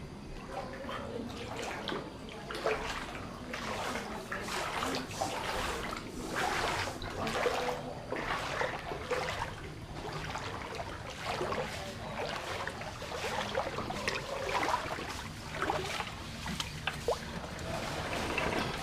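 Floodwater splashing and sloshing in irregular bursts.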